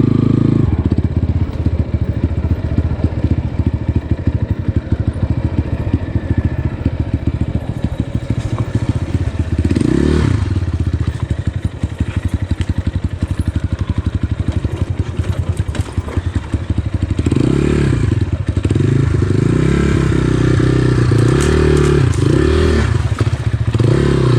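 GPX FSE 250 dirt bike engine running at low revs while lugging through a rocky creek crossing, with a short rev-up about ten seconds in and repeated blips of the throttle in the last several seconds, plus knocks and scrapes against the rocks.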